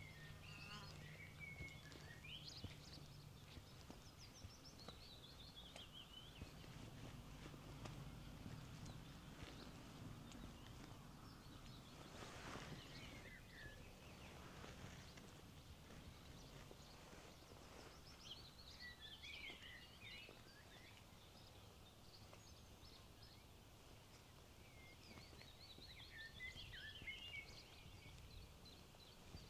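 Faint birdsong: a songbird sings a short, high, trilling phrase that falls in pitch, three times over a faint low hum.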